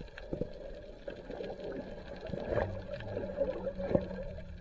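Underwater sound through a camera's waterproof housing: a muffled steady hum with a wavering drone over it and scattered clicks and knocks.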